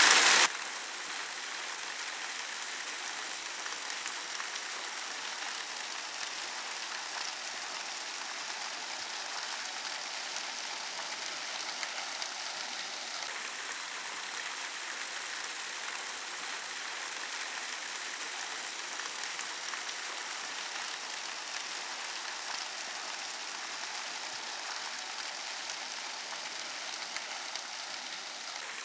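A louder rush stops abruptly about half a second in. After it comes a steady, even hiss of running water.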